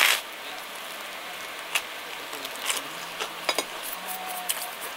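A bite into a slice of karaage pizza toast, loudest at the very start, then a few scattered clicks of chewing over a steady hiss of room noise.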